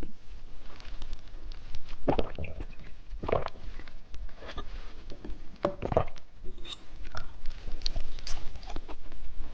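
Close-miked eating sounds: candy being bitten and chewed, heard as scattered small clicks and crunches with a few louder bites.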